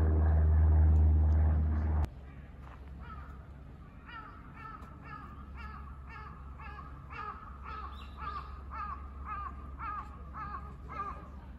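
A loud low drone that cuts off abruptly about two seconds in, then crows cawing in a quick, continuing series of short calls, two or three a second.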